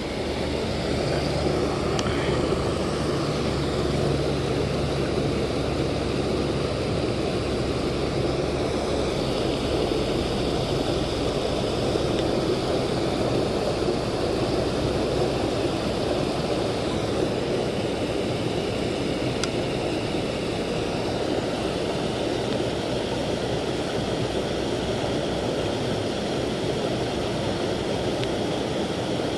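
A small creek spilling over a low cascade of logs and brush into a pool: a steady rush of moving water.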